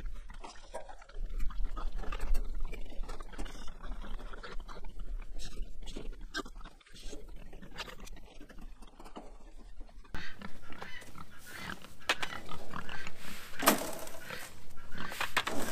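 Pigs grunting around a feeder, with scattered knocks and rattles as wire is fitted across it. Near the end, dry feed is poured from a bucket into the feeder in two rushing pours.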